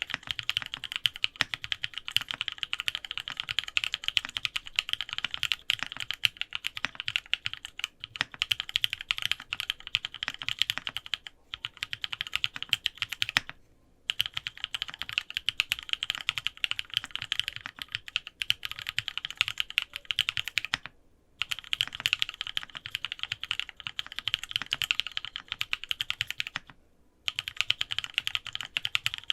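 Continuous fast typing on a Sangeo65 mechanical keyboard with lubed Cherry Cream switches, an aluminium plate and 6001 PBT Cherry-profile keycaps: a dense stream of keystroke clacks, broken by three short pauses.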